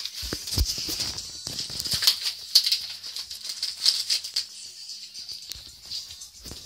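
Paper and packaging rustling and crinkling in the hands as a parcel is unwrapped, an irregular run of crackles and rustles.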